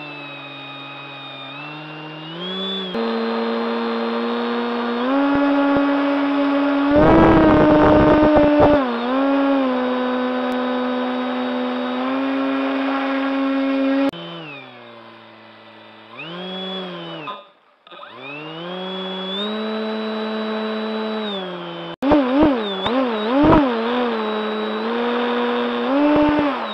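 The propeller motor of a radio-controlled aerosani runs with a whine that rises and falls as the throttle is worked. It almost cuts out for a moment about two-thirds of the way through, then picks up again. A rough rumble breaks in around eight seconds in, and there are knocks over the last few seconds.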